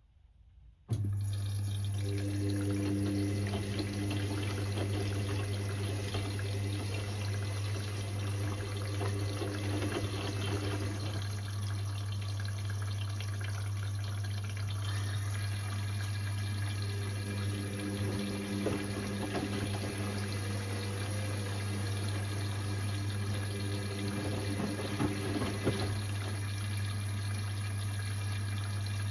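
Indesit IWC6165 washing machine cutting in suddenly about a second in with a steady hum and running water, a water pump or valve at work.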